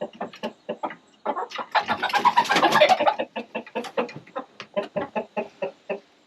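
Chickens clucking in short repeated notes, several a second, with a louder, noisier stretch of calls about two seconds in.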